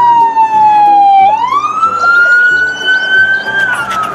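Police car siren wailing: one loud tone slides slowly down, sweeps back up in about half a second, holds high, and starts to fall again near the end.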